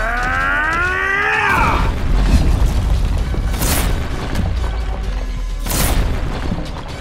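Cartoon fight sound effects over background music: a pitched cry that bends downward and fades within the first two seconds, then a low rumble and two short noisy crashes about two seconds apart.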